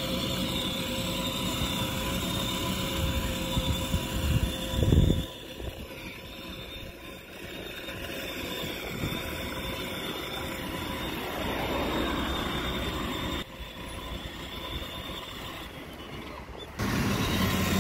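Battery-powered ride-on toy car (a Nissan GT-R replica) driving along rough asphalt, its electric drive motors giving a steady whine over tyre noise and road traffic. A loud low rumble about five seconds in.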